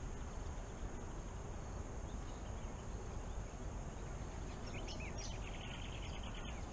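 Quiet outdoor ambience: a steady low background noise, with a few short bird chirps about five seconds in.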